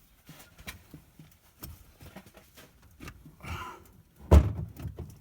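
Scattered light clicks and knocks of hands and tools working on the truck, with a short breathy exhale and then one loud thump a little past four seconds in.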